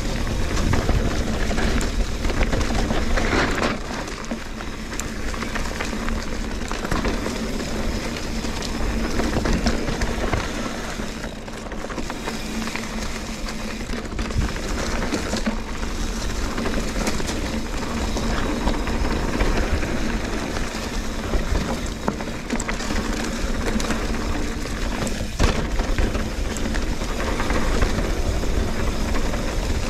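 Trek Fuel EX 8 full-suspension mountain bike ridden along a dirt trail: a steady rush of tyre and wind noise with frequent rattles and knocks from the bike over bumps.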